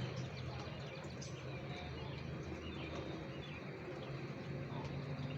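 Steady rain falling outdoors, with small birds chirping briefly now and then and a low steady hum at the start and again near the end.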